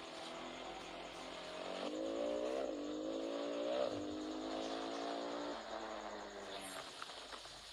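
A motor vehicle engine running, growing louder about two seconds in, with two quick rises in pitch about two and a half and four seconds in, then fading after about five and a half seconds.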